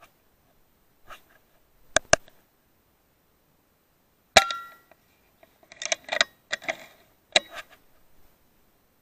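A single shot from a .22 FX Maverick PCP air rifle about four seconds in: a sharp crack with a brief metallic ring. It is followed by a quick run of irregular knocks and flutters as the hit bird flaps and thrashes on the wooden beam. Two lighter clicks come a couple of seconds before the shot.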